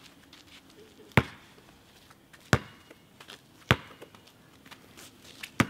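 Four sharp knocks about a second apart: thrown game pieces striking something hard during a throwing game.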